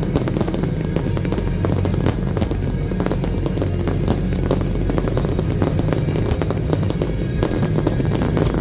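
Fireworks bursting and crackling, many sharp bangs in quick succession, over music with a steady low bass.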